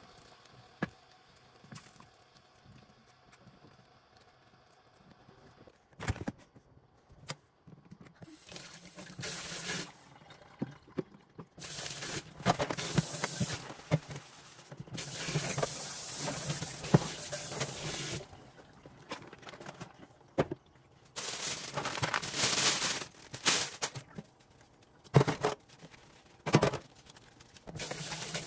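Kitchen cooking sounds: after several fairly quiet seconds, on-and-off stretches of hissing, water-like noise, the longest lasting several seconds, broken by a few sharp clicks and knocks.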